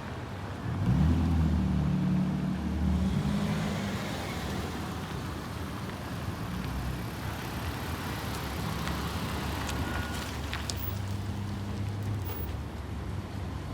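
A motor engine running steadily with a low hum; its pitch rises briefly about a second in, then settles.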